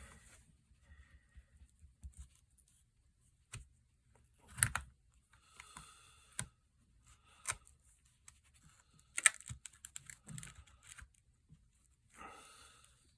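Tools clicking and scraping against a phone's back glass while its adhesive is worked loose: irregular sharp taps with short scratchy stretches in between.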